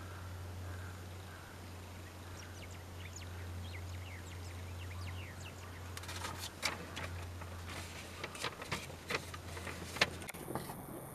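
Male lion chewing meat: a run of sharp clicks and cracks from about six seconds in, the loudest near the end. Under it, small birds chirp and a steady low hum stops shortly before the end.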